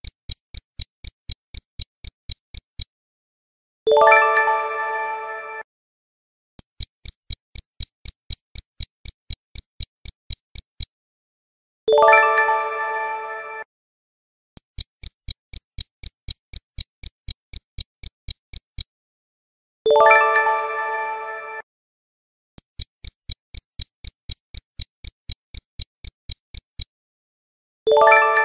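Quiz countdown-timer sound effect: a stopwatch ticking about four times a second for roughly four seconds, then a pause and a bright chime that rings and fades as the answer is revealed. The tick-then-chime cycle repeats four times.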